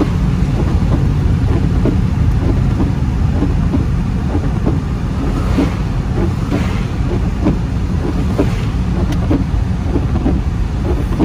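Car cabin in heavy rain: a steady low rumble of the engine and tyres on the wet road, with many irregular raindrop taps on the roof and windshield.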